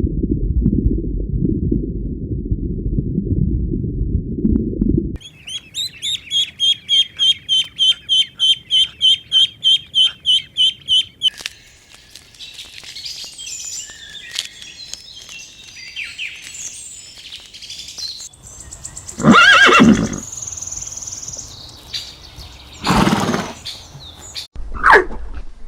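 A run of farm-animal sounds: a low rumbling noise for the first few seconds, then a high-pitched call repeated rapidly, about three times a second, for some six seconds. Later come loud horse whinnies, the two loudest well apart and shorter ones near the end.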